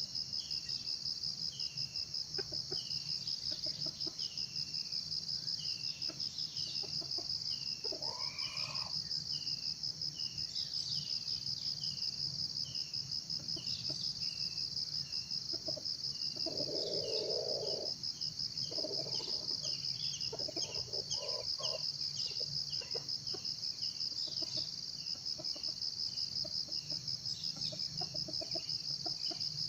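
Junglefowl crowing once a little past halfway, with a few shorter calls after it. Behind it runs a steady high insect drone and a string of small high chirps.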